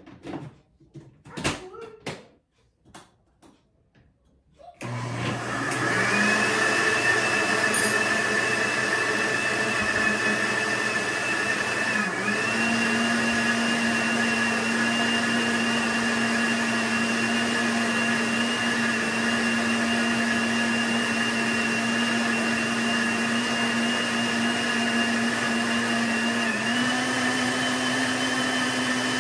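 A few knocks, then a kitchen blender starts about five seconds in and runs steadily, blending a liquid ice-pop mixture with a high motor whine. Its pitch dips briefly twice and settles slightly higher each time.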